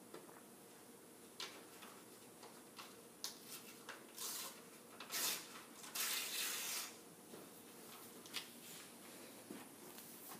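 Pen scratching on paper and sheets of paper rustling, with light clicks and a few louder rustles about four to seven seconds in, over quiet room noise.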